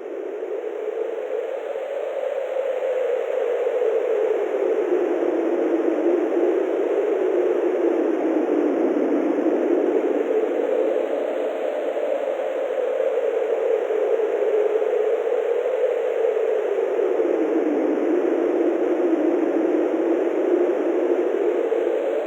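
Synthesized wind: filtered noise whose pitch slowly rises and falls in gentle swells, like a steady breeze howling softly. It fades in over the first couple of seconds, then holds steady.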